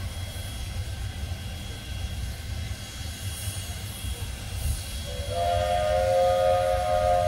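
Steam locomotive No. 89, a 2-6-0, standing with a low steady rumble and hiss of steam. About five seconds in, its steam whistle opens into one long blast, a chord of several steady notes held to the end.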